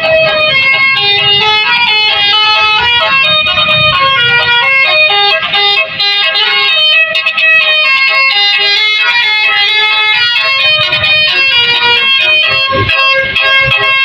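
A bus's basuri telolet musical horn playing a quick tune of stepped notes, several pitches sounding together, with a low vehicle rumble under it at times.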